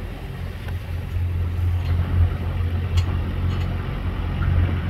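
Boat engine running with a steady low hum, under a rushing noise of water and wind.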